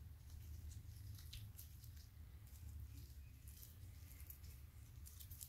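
Faint rustling and small clicks of latex-gloved hands handling a plastic cord and clip, over a low steady hum.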